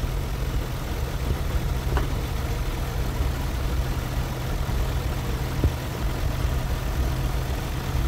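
Nissan 3.5-litre V6 engine idling steadily during an R-134a air-conditioning recharge, with a couple of faint small clicks.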